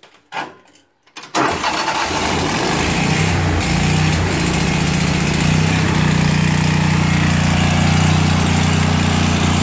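Lincoln Ranger 10000 engine-driven welder starting: the engine catches suddenly about a second in, runs rough briefly, then settles into a steady run.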